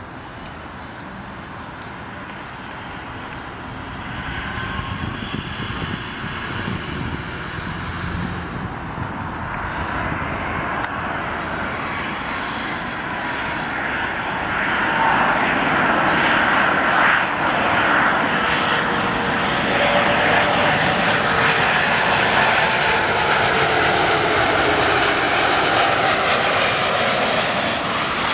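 Air Canada Airbus A330-300 on final approach, its twin Rolls-Royce Trent 700 turbofans growing louder as the jet comes closer. From about the middle on it is loud and steady, a jet rush with a few whining tones that slide lower in pitch as it passes.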